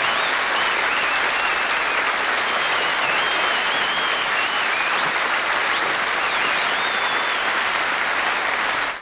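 Studio audience applauding steadily after a song.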